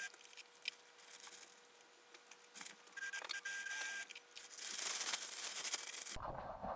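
Electric sewing machine running in short bursts, stitching through plastic tarpaulin, with the stiff tarp rustling as it is fed.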